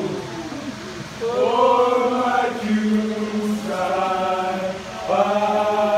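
A group of men chanting in unison in long, held notes, a fraternity chant, with new phrases starting about a second in, near the middle and about a second before the end.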